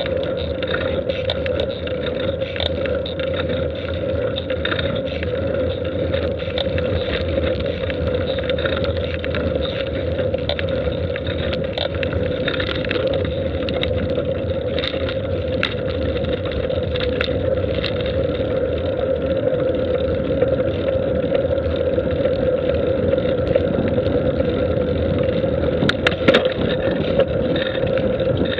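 Steady road and wind noise from a camera moving along an asphalt road, with a constant hum and scattered faint clicks, one sharper click near the end.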